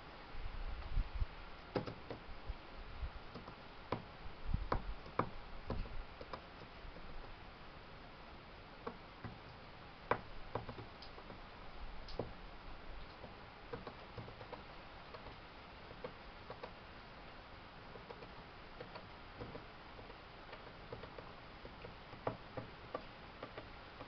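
Irregular faint ticks and taps, a few of them sharper, with low rumbling during the first six seconds.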